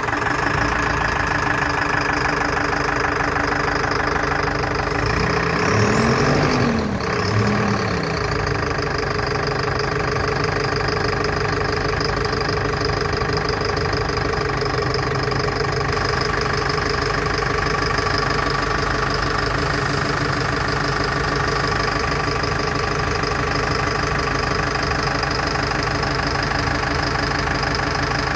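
Bucher CityCat 5000 street sweeper's engine idling steadily, with two brief revs that rise and fall in pitch around six to eight seconds in.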